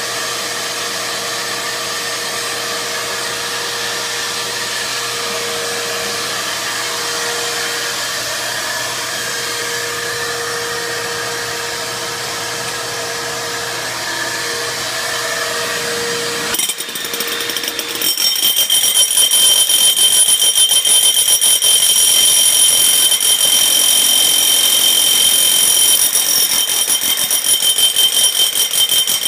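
A steady motor running for about the first seventeen seconds, then a hammer drill with a 5-inch core bit boring into a concrete floor: much louder, with a high whine and a fast hammering pulse, stopping near the end.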